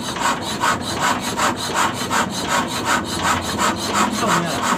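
S1115 single-cylinder diesel being turned over without firing: an even rasping chuff about four times a second. It will not start, and the fuel injection is suspected of not delivering diesel.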